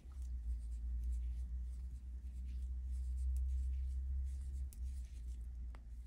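Metal knitting needles clicking and scraping faintly as knit stitches are worked one after another, with the yarn rubbing over the fingers, over a low steady rumble.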